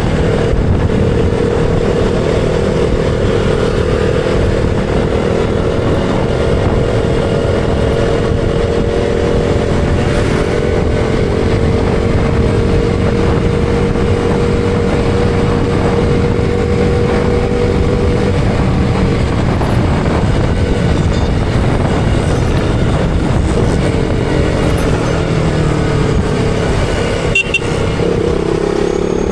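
KTM Duke 200's single-cylinder engine running under way, held at a steady pitch for most of the stretch, then its revs shifting up and down in the last several seconds. A short high tone sounds briefly near the end.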